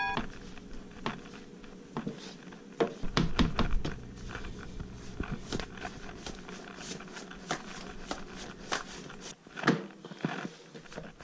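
Hands pressing and stretching pizza dough out on a floured cutting board by hand: scattered soft taps, knocks and rubbing, with a low rumble of handling about three seconds in.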